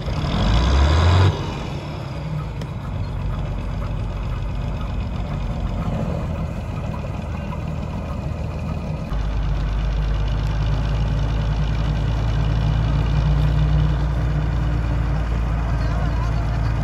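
Diesel engine of a New Holland 8070 combine harvester running, loudest in a short burst in the first second, then settling to a steady hum. The low hum grows deeper and louder about nine seconds in.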